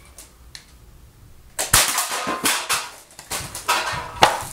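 Homemade PVC ball-valve air rifle firing a foam Nerf dart with a sharp crack about a second and a half in, followed by a string of knocks and clatters as the struck aluminium soda cans fall.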